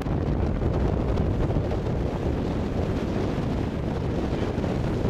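Wind buffeting the microphone aboard a moving tour boat: a steady, low rumbling noise.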